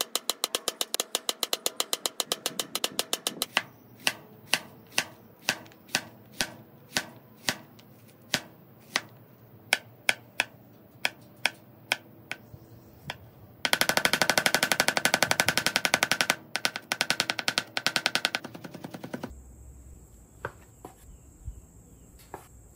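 Chef's knife chopping on a cutting board, each stroke a sharp tap: a quick even run at first, then slower single cuts about two a second, then a spell of very rapid chopping from about 14 to 18 seconds in. Near the end, fainter knife strokes slicing raw filet on a wooden board.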